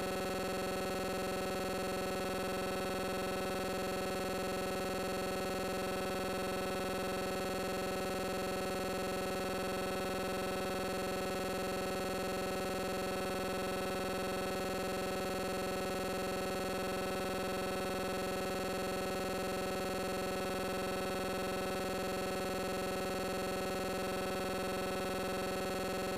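A steady electronic drone, like a held synthesizer chord, that keeps the same loudness throughout and repeats as a loop about every three and a half seconds.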